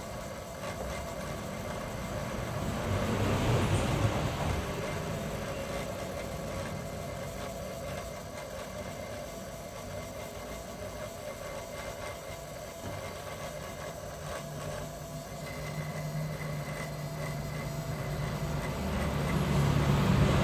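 Volkswagen Gol G4 engine running, with the throttle-body (TBI) noise the owner is pointing out. It swells briefly about three seconds in, settles into a steady hum, and grows louder again near the end.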